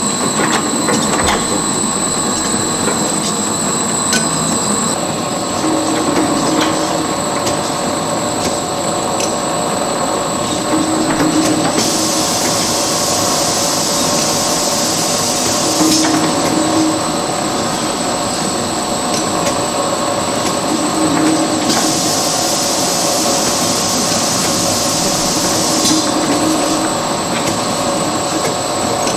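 Paper napkin production machine running steadily: a continuous mechanical clatter with a constant high whine, swelling slightly about every five seconds. A louder high hiss comes in twice, for about four seconds each time, in the second half.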